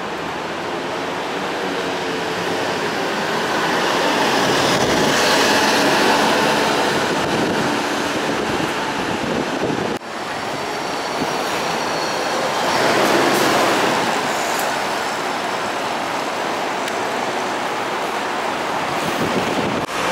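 Buses moving through a bus terminal: engines running and tyres on the road, the noise swelling as a bus passes about five seconds in and again around thirteen seconds, with a faint high whine near eleven seconds.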